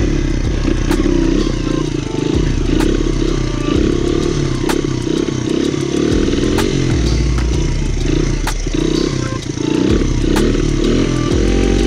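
Small four-stroke dirt bike engine under throttle through a wheelie, its pitch wavering up and down as the throttle is worked, with a few sharp clicks.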